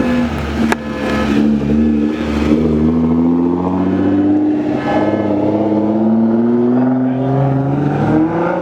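Nissan GT-R's engine pulling away from a car meet: one steady engine note that dips slightly, then climbs steadily over the last few seconds as the car accelerates.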